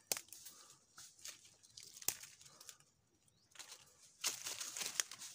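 Dry leaf litter rustling and crackling underfoot and under handling, with a few sharp clicks and a busier patch of crackling near the end.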